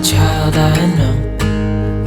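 Background music: a song led by acoustic guitar.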